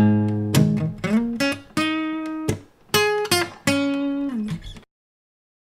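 Outro music: an acoustic guitar playing single plucked notes, a few of them sliding in pitch. It stops about a second before the end.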